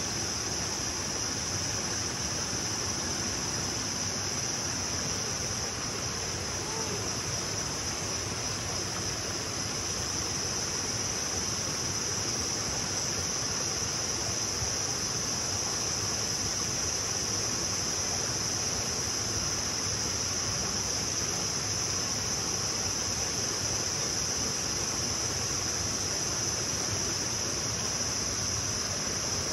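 A steady, unbroken high-pitched chorus of insects, with the rushing of a shallow stream flowing over rocks beneath it.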